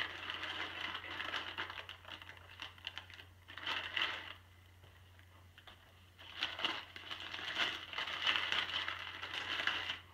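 Crinkling and rustling of packaging as a small mailed parts package and its paper packing slip are torn open and handled, in irregular bursts with a quieter lull about halfway through.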